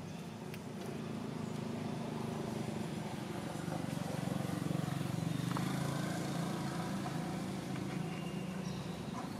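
Low engine hum of a motor vehicle in the distance, growing louder toward the middle and easing off again as it passes.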